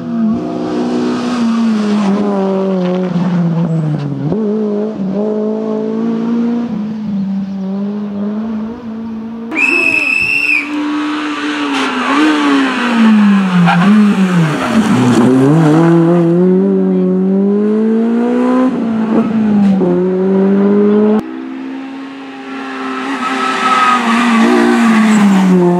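Honda Civic Type R rally car's four-cylinder engine revving hard, its pitch rising and falling as it brakes into and accelerates out of tight corners, with tyre squeal. The pitch drops low about fifteen seconds in, then climbs again. A brief high tone sounds about ten seconds in.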